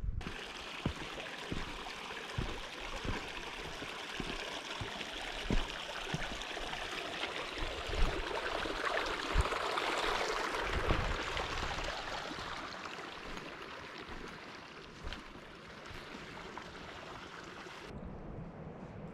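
Mountain stream rushing over rocks, swelling to its loudest about halfway through and then easing off, with a few soft low thumps underneath. It starts and stops abruptly.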